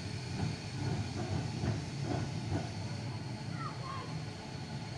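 1936 Liverpool double-deck electric tram, car 869, rolling along its track with a steady low rumble from wheels and motors.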